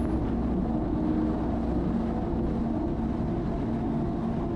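Jet ski engine running steadily under way, a continuous drone with no change in pitch.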